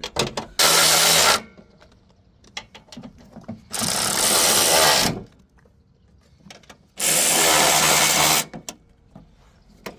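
A power tool run in three bursts of about a second to a second and a half each, a few seconds apart, with small clicks and knocks of handling between.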